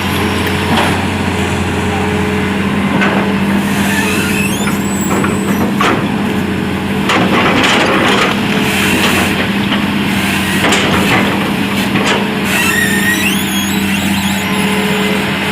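Heavy diesel machinery running steadily with a constant low hum, while short knocks and a few high squeals and creaks come and go.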